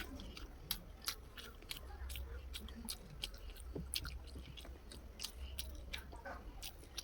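Close-miked chewing of egg curry and rice, with frequent irregular wet mouth clicks and smacks, over a low steady hum.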